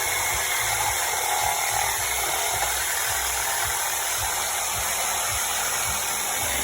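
Reciprocating saw (Sawzall) with a metal-cutting blade running steadily as it cuts through the nails holding pallet boards to the stringer, with a low knocking repeating a few times a second.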